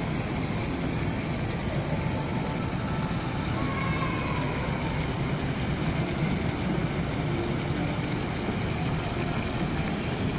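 Steady background noise of a large indoor atrium, with the low water jets of a small fountain splashing into their shallow basin; an even wash with no sudden sounds.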